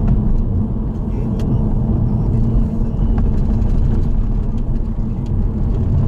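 Steady low rumble of road and engine noise from a car being driven, heard from on board.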